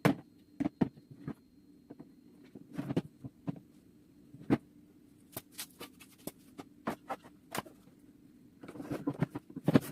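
Irregular sharp clicks and light knocks, a few a second at most, over a steady low hum; the clicks come thicker near the end.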